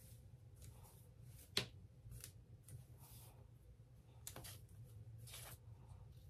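Faint rustling of fingers working through long wig hair: a string of short, scratchy swishes, with one sharp click about a second and a half in.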